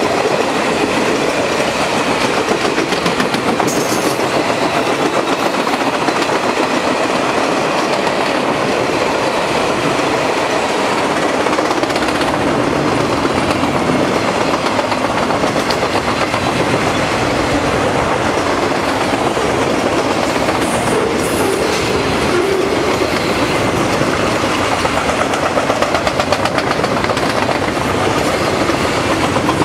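Cars of a long passing train rolling by at steady speed, the steel wheels clicking over the rail joints in a fast, even rhythm.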